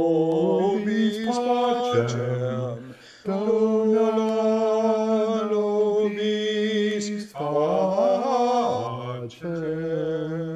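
A small group of men singing unaccompanied in close harmony: long held notes in phrases, with short breaks between them.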